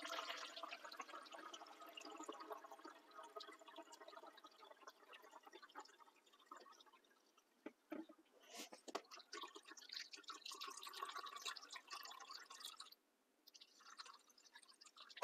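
Water poured slowly from a glass measuring cup into the plastic reservoir of a small hydroponic garden, running and trickling as it fills. The pour pauses about halfway, with two short knocks, then resumes.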